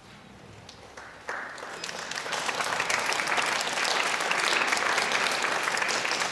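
Audience applauding in a concert hall. It starts about a second in and builds to full, steady applause.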